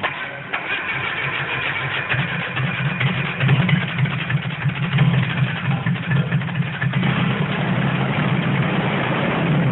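Rebuilt Datsun L16 inline-four engine starting and running. It is revved unevenly a few seconds in, then settles to a steadier run.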